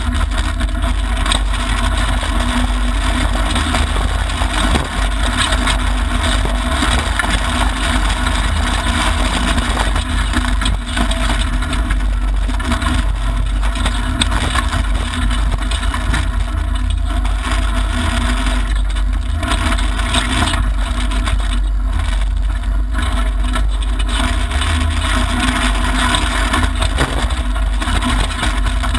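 Mitsubishi Lancer Evolution IX rally car's turbocharged four-cylinder engine running hard, heard inside the cabin, mixed with loud tyre and gravel road noise as the car drives a dirt stage at speed. The sound is a dense, steady, deep roar throughout.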